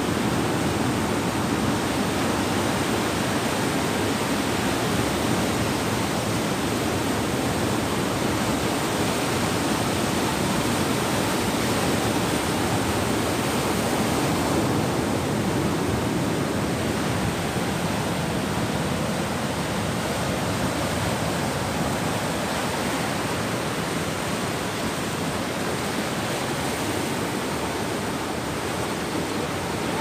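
Sea waves breaking and washing in over a rocky shore, a steady rushing surf.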